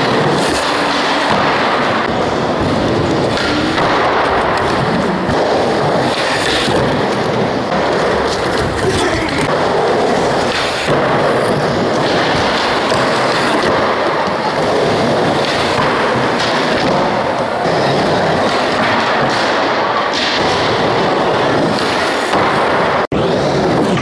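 Skateboard wheels rolling steadily over skatepark ramps, with several sharp clacks of the board's tail popping and landing on tricks.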